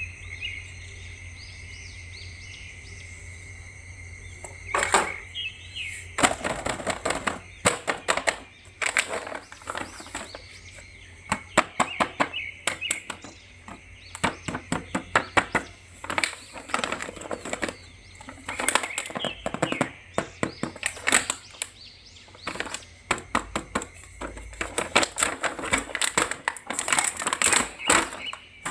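Hard plastic of a toy action figure and its packaging being handled, giving irregular clicks and knocks that come thick and fast after the first few seconds, over a steady low hum.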